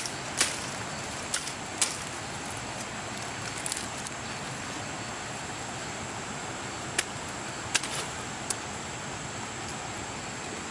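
A handful of short, sharp clicks, spread out over several seconds, over a steady hiss and a thin, steady, high insect drone.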